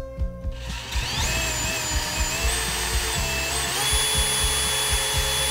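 Cordless drill running and boring through a bottle cap into a wood block: the motor whine starts about half a second in, steps up in pitch near the end, then stops suddenly. Background music with a steady beat underneath.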